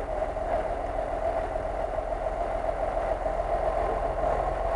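Off-road vehicle engine running steadily at low revs, with no change in pitch.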